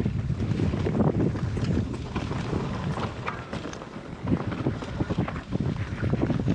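Mountain bike riding down a rocky trail: tyres rolling and knocking irregularly over rock and loose stones, the bike rattling, with wind rumbling on the microphone.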